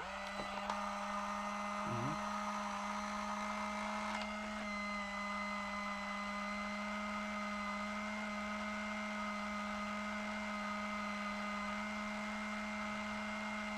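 Small electric motor and gear train of an Omnibot 2000 robot's tray mechanism running under power after the main button is pressed: a steady motor hum and whine, with a slight shift in pitch about four and a half seconds in.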